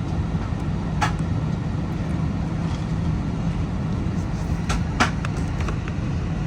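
Steady low drone and hum of an airliner cabin. Sharp clicks or knocks come about a second in and again in a quick cluster around five seconds in.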